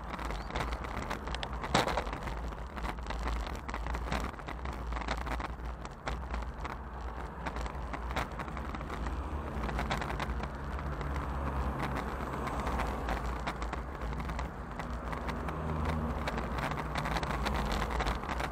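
Wind rushing over the microphone of a bicycle-mounted action camera, with tyre and road noise as the bike rolls along asphalt and a sharp knock about two seconds in. A motor vehicle's engine hum comes in faintly in the second half.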